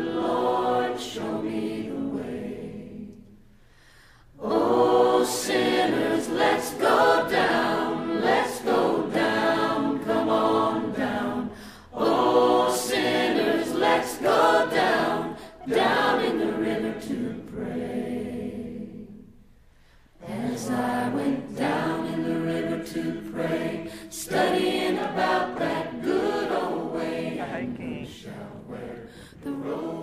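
A cappella choir singing a slow gospel song, broken by two short pauses between phrases.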